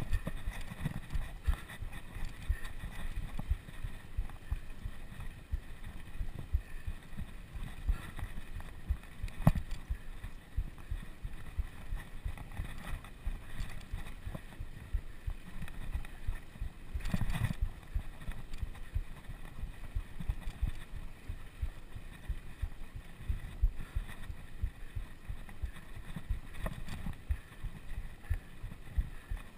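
Wind rumbling on the microphone of a camera carried on a bicycle ridden in a race, with frequent low thumps and knocks from the ride. There is a sharper knock about nine and a half seconds in and a heavier one around seventeen seconds.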